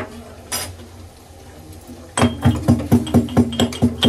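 A couple of metal kitchen utensils clinking, then background music with a fast, steady percussive beat comes in about halfway and stays loud.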